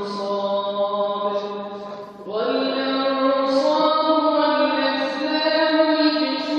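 A man's voice in melodic Quran recitation (tajwid), drawing out long held notes. About two seconds in there is a brief pause for breath, then a new phrase begins on a slightly higher note.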